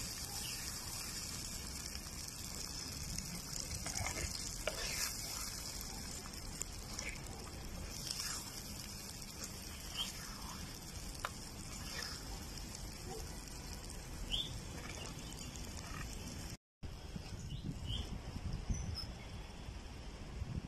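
Eggs with tomato and onion frying on a hot iron tava with a steady sizzle, and a metal spatula scraping and turning the mixture across the pan now and then.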